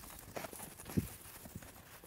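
Joi choi (bok choy) plants being pulled up out of loose garden soil by the roots: a few dull thumps with rustling of leaves and soil, the loudest thump about a second in.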